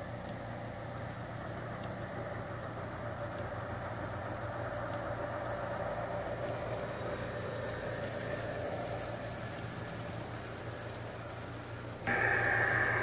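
G-scale model trains running past on garden-railway track, a steady rumble of wheels and motors that grows a little louder midway as a freight train passes close. About twelve seconds in, a louder, steadier sound with a high tone cuts in abruptly.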